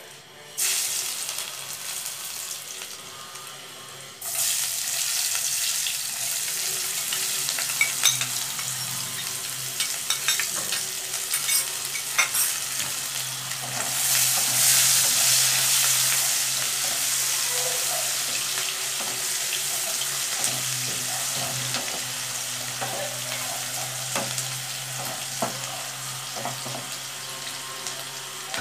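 Chopped onions sizzling and frying in hot oil in a nonstick pan, stirred with a spatula that clicks and scrapes against the pan. The sizzle starts suddenly about half a second in, jumps louder around four seconds in, and is loudest in the middle.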